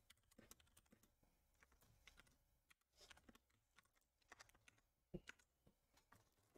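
Near silence with a few faint, scattered clicks and taps, the loudest a pair about five seconds in.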